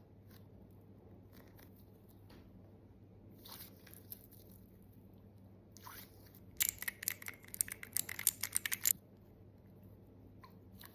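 Hands handling a squishy toy: faint scattered rustles and taps, then about two seconds of dense crackling and crinkling about two-thirds of the way through.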